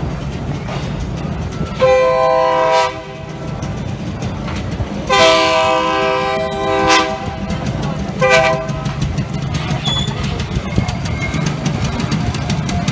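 Horn of a sugar-cane freight train sounding three blasts: one of about a second, a longer one of nearly two seconds, then a short one. Underneath is the steady low rumble of the loaded cane cars rolling past.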